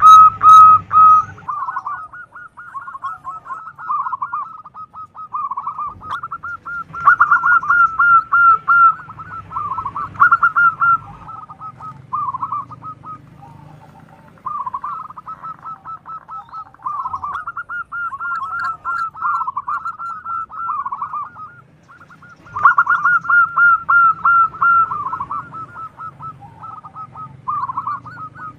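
Zebra doves cooing: rapid, rippling series of soft pitched notes, with phrases from more than one bird overlapping as they answer one another, and two short lulls.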